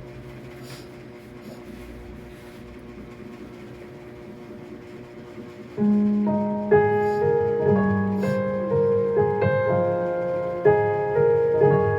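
Piano introduction to a slow pop ballad. A faint held chord lingers for about six seconds, then the piano comes in loudly with struck chords and a melody line.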